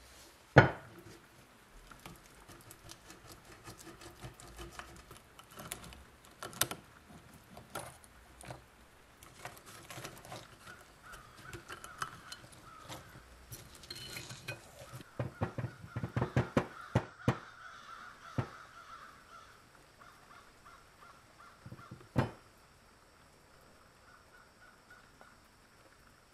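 Scattered knocks and clatters of a rusty steel axe head and splintered wooden handle pieces being handled on a wooden workbench. There is one loud knock about half a second in, a quick run of knocks in the middle and another sharp knock near the end.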